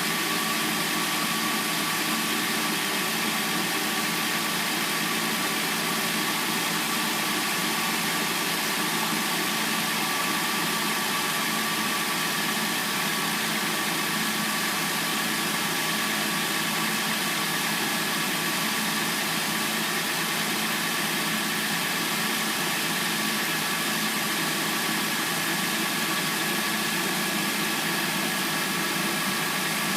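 Hyundai Sonata replacement engine idling steadily while warming up after a cold start.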